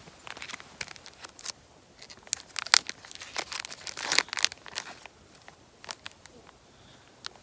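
A packet of orange rabbit-fur zonker strips crinkling and tearing as it is opened and a strip is pulled out, in sharp irregular crackles that are loudest around the middle and die away after about five seconds.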